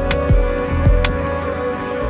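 Background music with a steady beat and held melodic tones.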